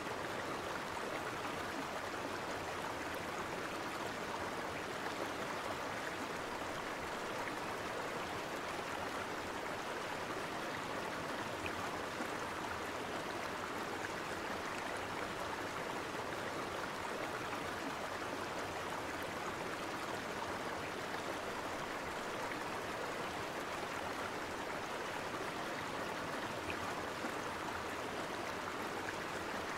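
Flowing river water: a steady, even rush.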